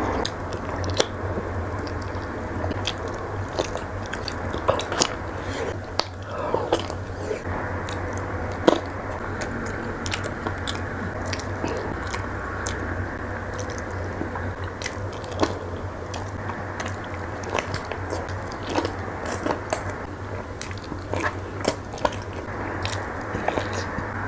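Close-up chewing and biting of spicy pork ear: the cartilage crunches with many sharp, irregular crackles. A steady low hum runs underneath.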